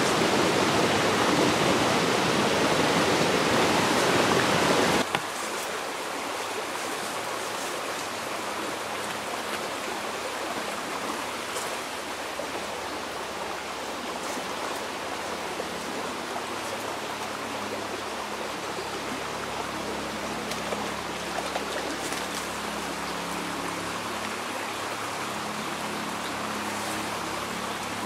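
Small mountain stream: water rushing loudly over a little cascade, then, after a sudden cut about five seconds in, quieter steady flowing water over a riffle.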